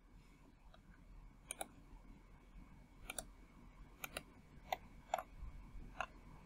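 Faint computer mouse and keyboard clicks, about six single clicks at irregular gaps.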